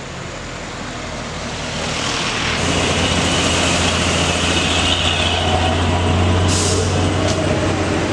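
Heavy diesel engine running loud and steady as a truck passes close by, after quieter road noise at the start. A short hiss cuts in about six and a half seconds in.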